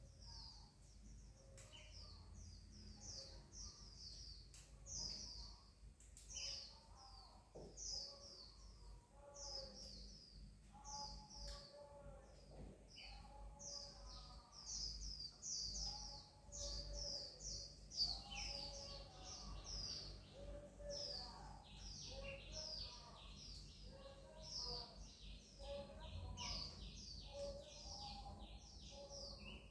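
Birds chirping, several short high calls a second throughout, with a faster run of even pulses joining in about two-thirds of the way through. A few faint sharp clicks, one louder about midway.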